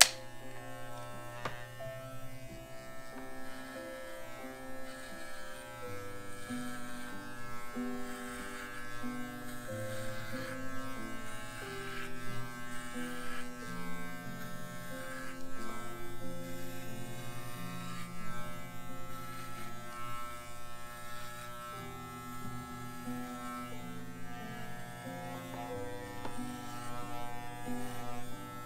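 Corded electric pet clippers buzzing steadily as they cut through a miniature schnauzer's coat.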